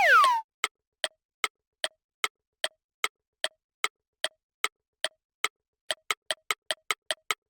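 Cartoon sound effects: a short falling whistle-like glide, then clock-like ticking at about two and a half ticks a second that speeds up to about seven a second near the end.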